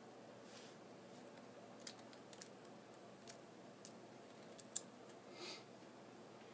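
Faint, scattered small clicks and taps of small tools and tiny parts as an iPhone 4 is taken apart, with one sharper click near the end and two short soft scrapes.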